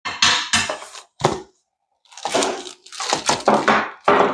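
Plastic packaging crinkling and rustling as parts are pulled out of a portable camp grill's body, with light knocks of the parts. It comes in irregular bursts, in two stretches with a short pause between them.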